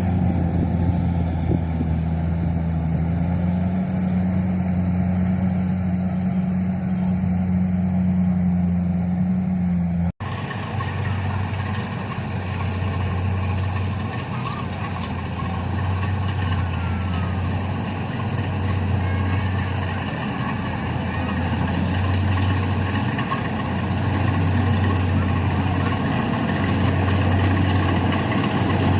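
Rice combine harvester's engine running steadily, with a brief dropout about ten seconds in. After the dropout its low hum swells and eases evenly about every two seconds.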